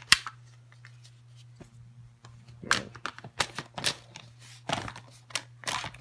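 Handling noise from a Tacamo Blizzard magfed paintball marker: a sharp click just at the start, then after a pause a series of short clicks and rustles as it is moved about on a bedspread.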